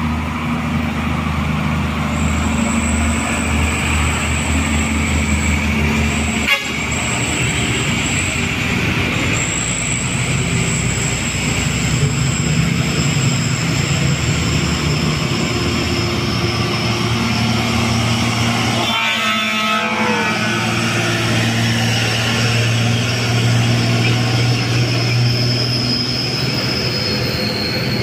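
Diesel engines of heavy trucks labouring up a steep grade as they pass in turn, among them a Hino wingbox truck, with a steady low engine drone. There is a sharp click about six seconds in.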